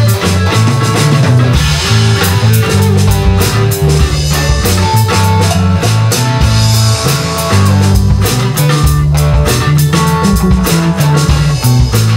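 Live rock band playing an instrumental passage, with guitar, a moving bass line and a drum kit keeping a steady beat.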